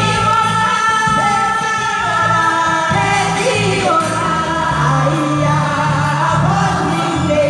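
A song playing: singing voices holding long notes over instrumental accompaniment.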